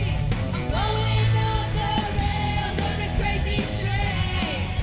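A live youth rock band playing hard rock, with electric guitars, several drum kits and a group of singers. A sung note is held from about a second in.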